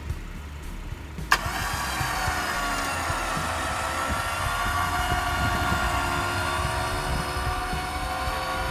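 Warn Zeon 10 electric winch clicking on about a second in, then running with a steady high whine as it pulls on the synthetic line to the stuck Wrangler. Its pitch sags slightly just after it starts, then holds.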